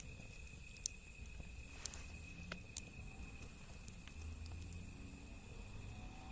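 Wood fire crackling, with a few sharp pops and snaps from the burning wood, under a steady faint high-pitched tone.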